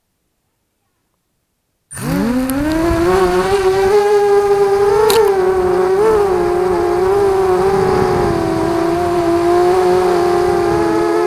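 ZMR250 racing quadcopter's motors and propellers spinning up about two seconds in with a sharply rising whine, then a steady whine that wavers slightly with throttle as it flies, heard from the onboard camera.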